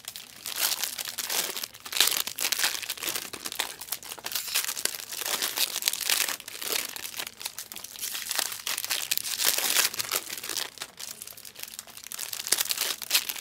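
Trading-card pack wrappers crinkling and crackling without a break as packs are handled and opened, with many sharp crackles.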